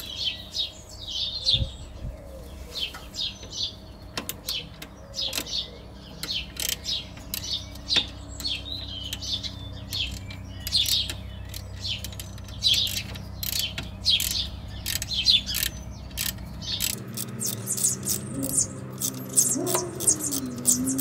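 Small socket ratchet clicking in short, irregular runs as it undoes the screws holding a suspension height sensor, with birds chirping in the background. A steady low hum underneath stops about four seconds before the end.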